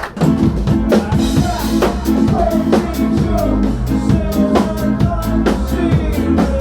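Live band playing a loud, bass-heavy groove with a steady drum-kit beat, kicking in suddenly and stopping abruptly near the end.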